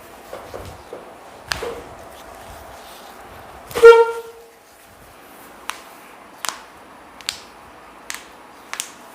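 Sharp cracks from joints being manipulated in a chiropractic adjustment, spaced out one at a time. About four seconds in comes the loudest crack, joined by a short, loud pitched tone lasting under half a second.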